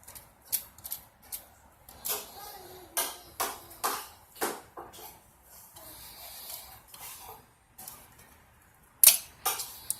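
1946 Remington Rand Noiseless Model 7 typewriter's mechanism clicking and clacking in irregular strokes as it is worked, with a pause late on and the loudest clack about nine seconds in.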